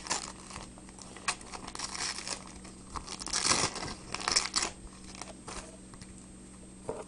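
Packaging crinkling and tearing as a pack of baseball cards is unwrapped by hand, in irregular rustling bursts, the loudest about three and a half and four and a half seconds in.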